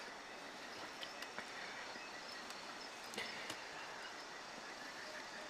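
Faint, steady outdoor ambient noise, with a few soft, faint clicks scattered through it.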